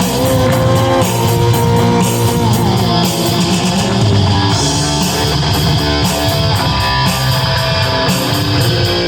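Distorted electric guitar playing a rock riff, loud and continuous.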